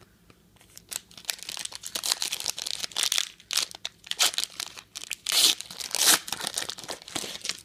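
A foil wrapper of a 2010-11 Panini Playoff Contenders basketball card pack being torn open by hand. It crinkles and tears from about a second in, with several louder rips.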